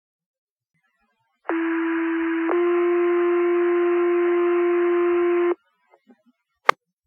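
Fire department two-tone sequential page heard over a radio scanner: a steady tone for about a second, then a slightly higher, louder tone held for about three seconds, over radio hiss, alerting the fire station to a call. A single sharp click near the end.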